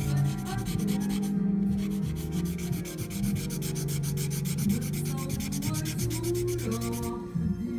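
Charcoal pencil scratching on paper in rapid, evenly spaced back-and-forth shading strokes. The strokes pause briefly about a second and a half in and stop about seven seconds in. Music plays underneath throughout.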